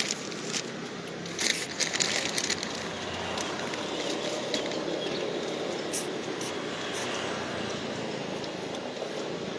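Steady roadside street noise with traffic, broken by a few short clicks, most of them about two seconds in.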